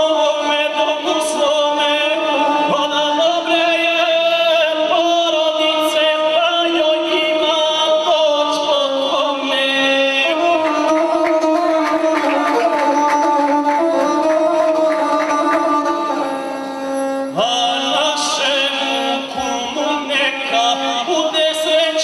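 A gusle, the single-string bowed folk fiddle, played with a bow while a man sings an epic song to it. The sound is continuous, with a short lull about three-quarters of the way through.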